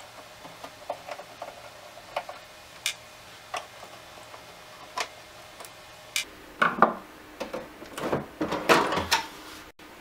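A screwdriver turning out a screw on the back of a slimline PC case, with scattered light clicks and ticks. About two-thirds of the way in, the metal access cover scrapes and slides off the case in several louder bursts.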